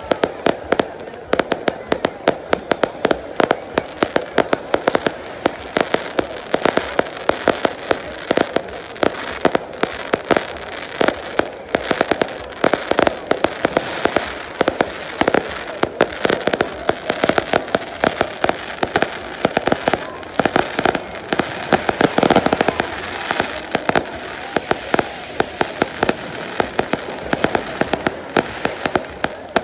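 Fireworks display: aerial shells bursting and crackling in a dense, unbroken run of bangs, several every second.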